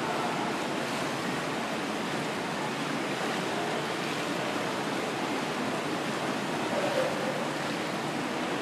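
Indoor swimming pool ambience: a steady wash of moving water.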